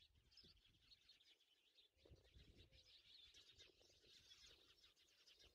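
Near silence, with faint bird chirping in the background.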